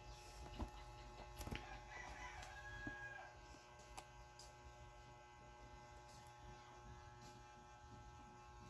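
Near silence: a faint steady hum with a few soft clicks, likely from handling the shrink-wrapped box.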